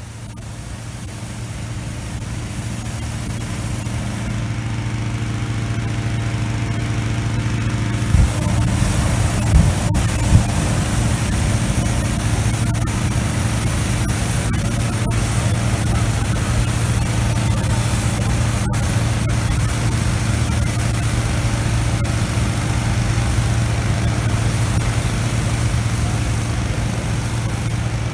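Petrol-engine balloon inflator fan running steadily, with the balloon's propane burner firing from about eight seconds in as the air in the envelope is heated to stand the balloon up.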